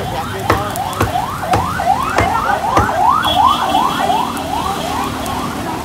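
A siren yelping in quick rising sweeps, about four a second, loudest around the middle and fading toward the end. Several sharp knocks sound in the first three seconds.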